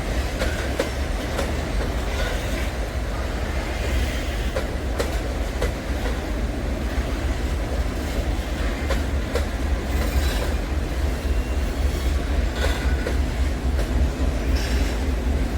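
Freight train wagons rolling past on the rails: a steady low rumble with irregular clicking of wheels over rail joints, and brief high wheel squeals about ten seconds in and again near the end.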